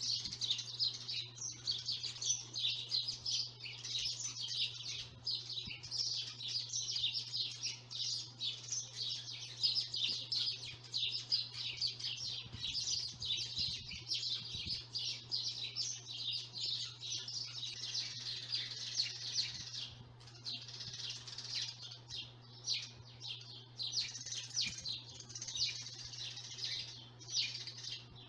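Many small birds chirping continuously in a dense chatter of rapid short calls, thinning a little about two-thirds of the way through, over a steady low hum.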